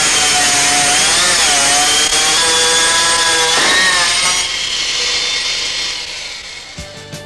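Hydraulic stone-cutting machine running its cutting disc through stone, a steady whine that dips in pitch twice as the disc takes load, then dies away over the last few seconds.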